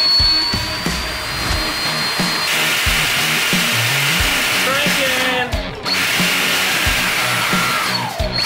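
Large brushless drone motor spinning a blade at high speed with a high whine and hiss; the whine falls in pitch as it slows, about halfway through and again near the end. Background music with a beat plays underneath.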